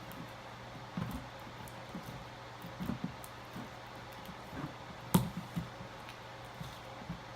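Slime being squished: soft, irregular squelches, with a sharp click about five seconds in.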